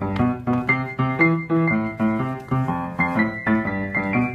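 Upright piano played in a steady, bouncy rhythm of chords, about four a second.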